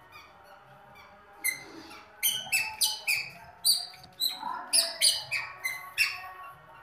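A toddler's squeaky shoes chirping with each step: a quick run of sharp, high squeaks, about three a second, starting about a second and a half in.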